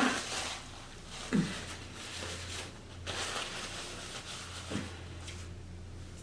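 Close-miked chewing and mouth sounds of a person eating rice, with two brief low hums from the eater, about a second in and near the end, over a steady low hum.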